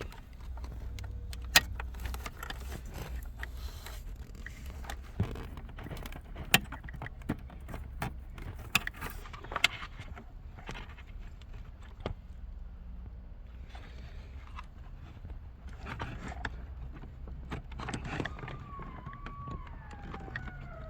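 Wiring harness plugs and cables being handled and pushed into connectors behind a dashboard: scattered sharp plastic clicks and rattles over a steady low hum. A faint wavering tone comes in near the end.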